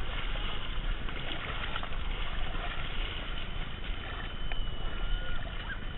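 Feet splashing and sloshing through a shallow muddy pool, heard close up from a body-worn camera as an uneven, steady wash of noise with a heavy low rumble.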